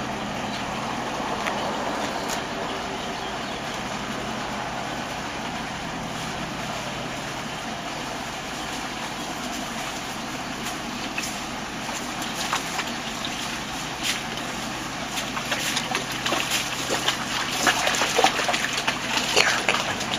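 Steady rush of flood-irrigation water across a yard, with dogs splashing and wading through the shallow water; the splashing starts about halfway through and grows busier and louder toward the end.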